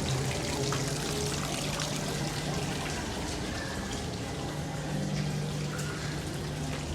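Steady pouring and trickling of flowing water, as from an indoor waterfall or fountain.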